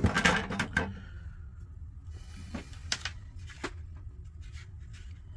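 Computer expansion cards being handled and set down on a wooden workbench: a cluster of clicks and light knocks in the first second, then a few scattered sharp clicks, over a low steady hum.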